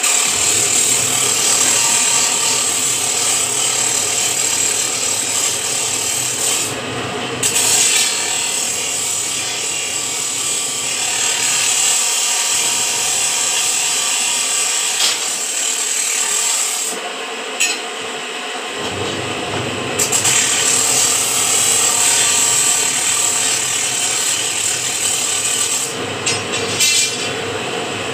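Motor-driven scroll-bending machine running, its rotating die table winding a square steel bar into a scroll with steady grinding and scraping of metal on metal. The high scraping drops out briefly a few times.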